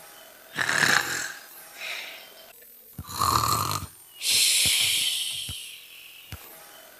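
Exaggerated, imitated snoring: two rasping snores on the in-breath, a few seconds apart, the second followed by a long hissing out-breath.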